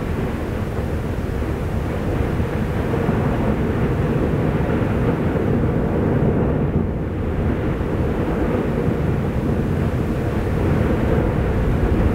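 Steady low roar of the Fagradalsfjall volcanic eruption, a deep rumble with no distinct bangs, its higher hiss thinning briefly about halfway through.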